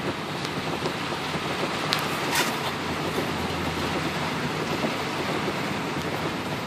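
Steady rumble and hiss of a vehicle driving in heavy rain through standing water, heard from inside the cabin. Two brief sharp sounds come about two seconds in.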